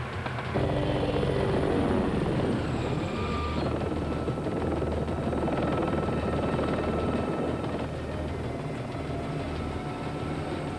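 Helicopter flying, its rotor and engine running steadily; the sound gets louder under a second in.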